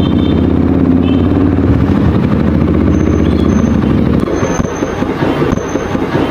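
Motorcycle engine running through an aftermarket exhaust: a steady low drone. About four seconds in it turns slightly quieter and choppier.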